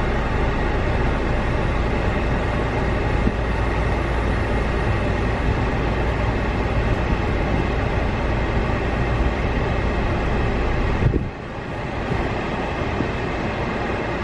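Automatic car wash running: a steady rush of water spray and brushes over a deep rumble, dipping briefly about eleven seconds in.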